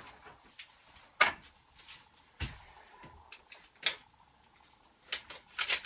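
Scattered clicks and knocks of copper pipe offcuts and a tubing cutter being picked up and handled, about a handful of separate sharp knocks with a short cluster near the end.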